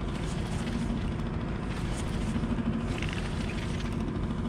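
A baitcasting reel being cranked to bring in a small sand bass, over a steady low rumble with a faint hum that comes and goes.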